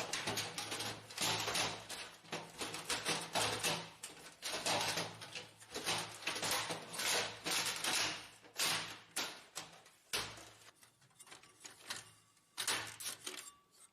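Plastic back cover of an HP LaserJet printer being handled and fitted onto the printer: a busy run of plastic clicks, knocks and scraping, growing sparser over the last few seconds.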